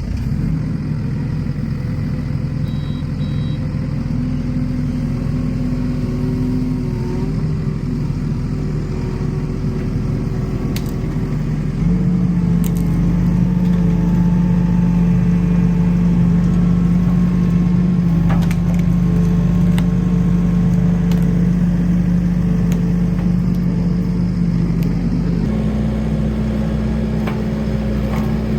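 Kubota SVL65-2 skid steer's diesel engine running steadily just after start-up. Its pitch steps up twice, about twelve seconds in and again near the end.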